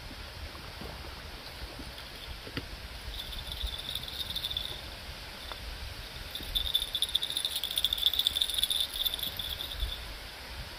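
An insect trilling in rapid high-pitched pulses: a short trill about three seconds in, then a longer, louder one from about six and a half to nine and a half seconds. Beneath it is a steady low rush of water and wind.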